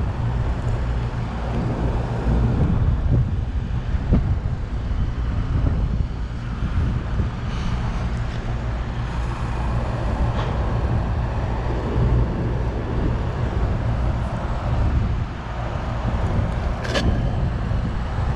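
Air conditioner condensing unit running, a steady low hum of its compressor and fan, with a sharp click near the end.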